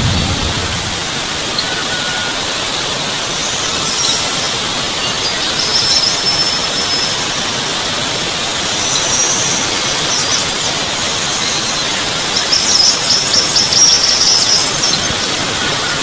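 Rice-paddy field ambience: a steady high hiss, with short bursts of rapid high chirring that come and go, the longest and loudest near the end.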